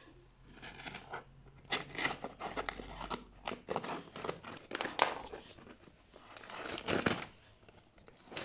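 Scissors snipping through a paper popcorn bag in a run of irregular cuts, with the paper rustling and crinkling as it is handled and pulled open.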